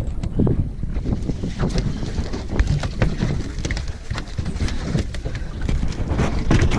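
Wind buffeting the microphone on a small boat at sea, with a steady low rumble and a run of quick, irregular taps and knocks throughout.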